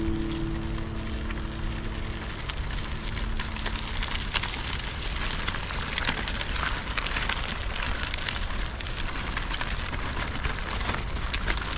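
Gravel and dry leaves crunching and crackling under footsteps and stroller wheels rolling along a dirt trail, a steady stream of small crackles.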